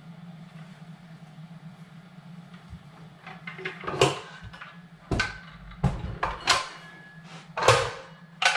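Knocks and clatters of the KitchenAid stand mixer's housing and parts being handled and fitted back together during reassembly, several sharp knocks at irregular intervals from about three and a half seconds in, over a steady low hum.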